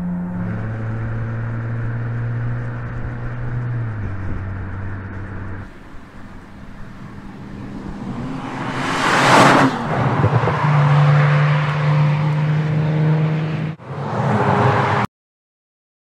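Audi RS4 Avant's twin-turbo V6 running at steady revs, its engine note stepping down in pitch a couple of times in the first few seconds. About nine seconds in the car sweeps loudly past, then holds a steady note again before the sound cuts off abruptly about fifteen seconds in.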